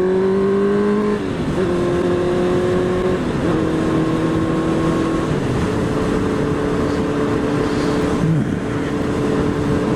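Honda CB650F inline-four engine under way: its rising note drops at a gear change about a second in, steps down twice more around three and five seconds, then holds steady at cruise. Steady wind and road noise run under it.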